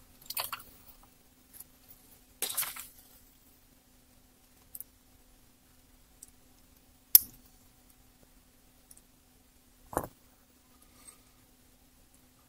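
Small pliers and a wire being handled: scattered clicks and short rustles, with a sharp click about seven seconds in and a duller knock near ten seconds, over a faint steady hum.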